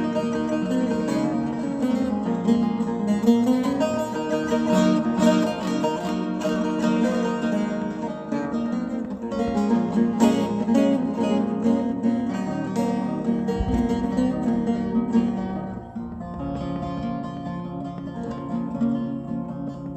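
Kurdish buzuq, a long-necked lute, played solo: a busy run of plucked and strummed notes that eases off and gets softer after about sixteen seconds.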